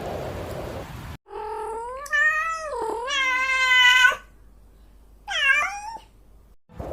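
Domestic cat meowing: one long drawn-out yowl lasting nearly three seconds, then a shorter, falling meow about a second later.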